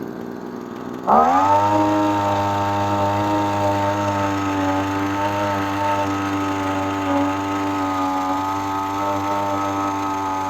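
Small two-stroke engine of a Taiwan TU 26 water pump running, revved up sharply about a second in and then holding steady at high revs without bogging down: the carburettor air screw has just been set a half turn to cure it dying when the throttle is raised.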